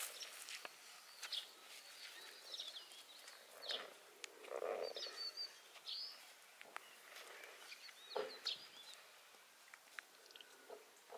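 Faint outdoor ambience with scattered short, high bird chirps, a few small clicks and rustles, and one brief lower sound about halfway through.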